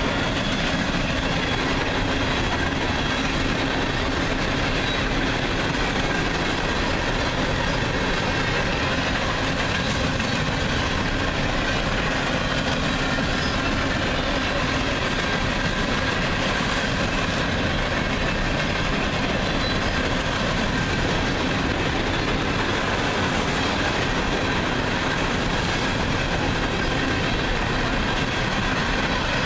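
Empty coal hopper cars of a freight train rolling past, with the steady noise of steel wheels running on the rails.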